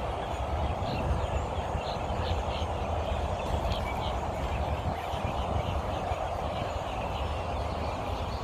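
A large flock of birds chattering together as they settle to roost, a dense unbroken mass of calls with scattered higher chirps standing out. A steady low rumble runs underneath.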